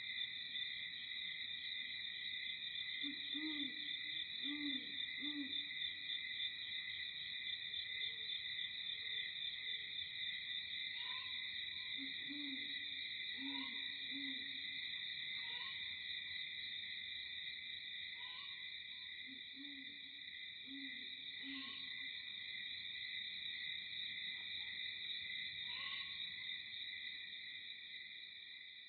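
A steady, high-pitched insect chorus drones throughout. Over it, a bird gives a low, three-note hooting call three times, several seconds apart. Short chirps from another bird come every few seconds after the first third.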